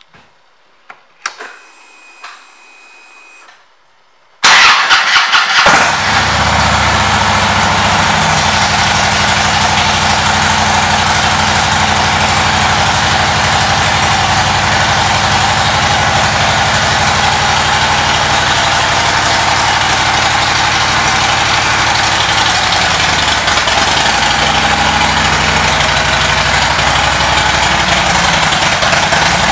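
2010 Harley-Davidson Ultra Classic's air-cooled Twin Cam 96 V-twin being started. After a few faint clicks and a short faint whine, it cranks briefly about four seconds in, catches and settles into a steady idle.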